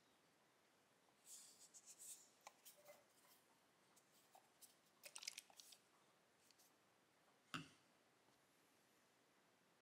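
Faint scattered clicks, taps and light scrapes, as of small things being handled, with one sharper knock about seven and a half seconds in. The sound stops abruptly just before the end.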